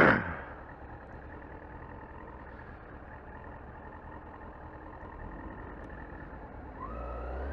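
Motorcycle engine running at low speed in traffic, with its revs rising about seven seconds in as the bike pulls ahead. A brief loud burst of noise right at the start.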